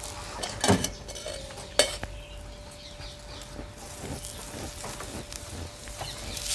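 A spoon scraping and clinking on a hot iron tawa as a paratha is greased and cooked, with sizzling underneath. Two sharp clinks come in the first two seconds, and the sizzle grows louder near the end.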